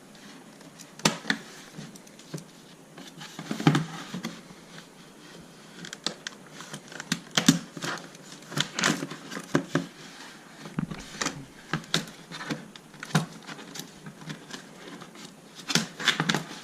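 Irregular sharp clicks, snaps and plastic handling noises as the zip ties holding a radio-controlled truck in its packaging are cut and worked free with scissors.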